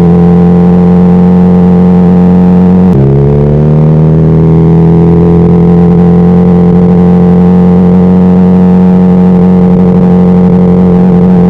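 Honda CBR600RR's inline-four engine running loud at steady revs under way. About three seconds in the pitch drops suddenly at a gear change, then rises slowly back to a steady drone.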